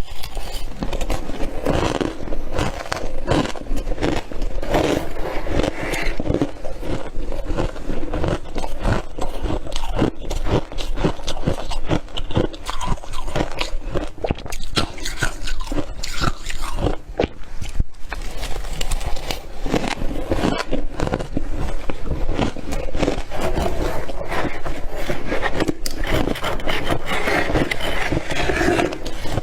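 Close-miked biting and chewing of freezer frost: a dense run of squeaky, crackling crunches with some scraping, continuing without pause.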